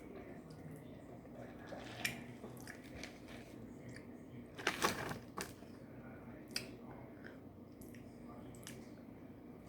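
Close-up eating sounds: chewing and biting food, with scattered small crunches and clicks and a louder cluster of crunching about halfway through, over a steady low hum.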